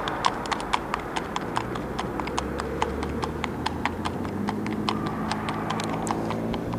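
Tennessee Walking Horse's hooves clip-clopping on asphalt as it walks, a quick, even run of sharp hoofbeats.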